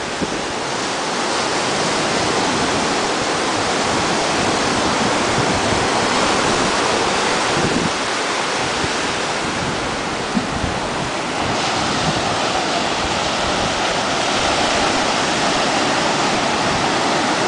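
Waves breaking and washing up a sandy beach, a steady rush of surf.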